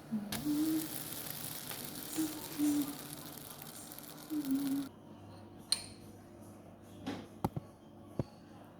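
Steady hiss that stops abruptly about five seconds in, followed by several sharp clinks of dishes or utensils.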